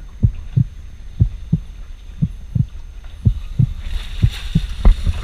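Boat engine idling: a steady low hum with a slow, regular thump about three times a second. About three and a half seconds in, a splash as a scuba diver back-rolls off the side into the water, with a sharp knock near the end.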